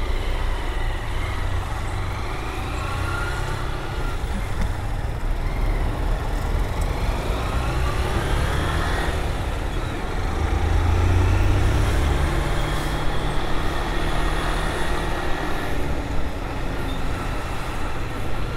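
Honda Fan 160 motorcycle's single-cylinder engine running under way, its pitch rising and falling, over a steady low wind rumble on the helmet microphone that grows louder about ten seconds in.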